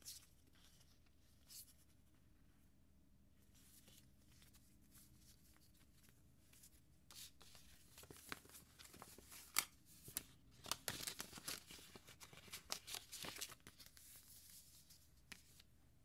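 Paper sticker sheets rustling and crackling as they are flipped through and handled. It is quiet at first, and the rustling is busiest in the second half.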